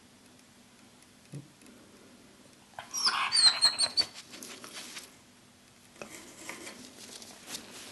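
A plastic bag and T-shirt crinkling and rustling as a dog noses and burrows into them. A loud crackly burst with a few high squeaks comes about three seconds in and lasts about a second, then softer rustling from about six seconds in.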